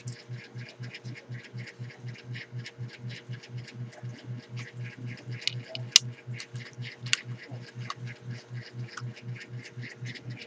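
Keys of a Wellrui V802 87-key keyboard being typed on: rapid, uneven clicking, with a sharper, louder clack about six seconds in and another about a second later. Under it runs a low hum that pulses evenly about four times a second.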